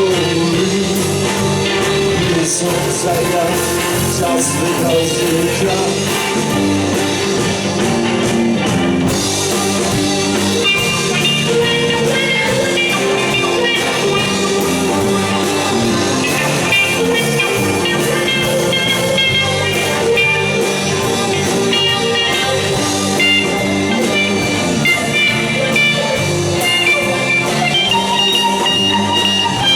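Live psychedelic rock band playing an instrumental jam with guitar and drums, no singing. A high, repeated melodic line comes in about ten seconds in.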